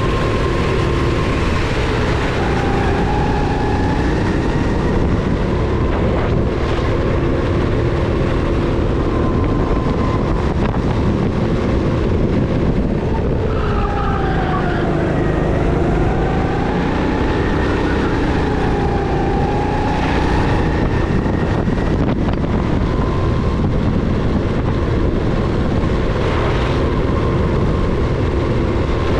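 Rental go-kart engine running at race pace, its pitch rising and falling over and over as it accelerates out of corners and eases off into them, over a steady rush of wind and tyre noise.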